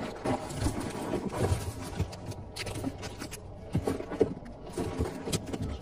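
Packaging being handled: plastic bags crinkling and cardboard rustling, with light, irregular knocks as items are lifted out of a cardboard box.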